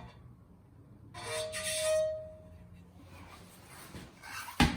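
Metal scraping with a clear ringing tone for about a second as the rear wheel of an MV Agusta Dragster 800 is worked off its hub, then a single sharp knock near the end.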